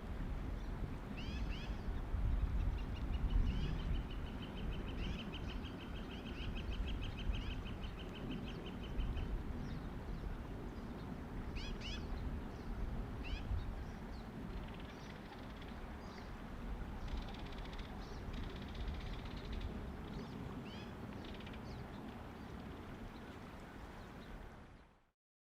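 Bald eagles calling: short high squealing calls scattered through, and a long fast chatter of piping notes, about six a second, from about two to nine seconds in. Underneath runs a steady low rumble of wind.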